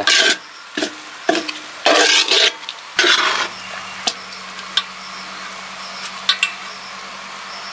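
Metal spoon scraping and scooping through freshly dum-cooked chicken biryani in a wide metal pot: several short scrapes in the first few seconds, then lighter clinks of the spoon against the pot. A low steady hum comes in about three seconds in.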